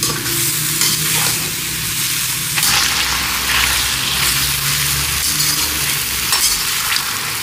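Cubed potatoes, cauliflower and onion sizzling steadily as they fry in ghee in a steel karahi, with the scrape of a slotted steel spoon stirring them every so often.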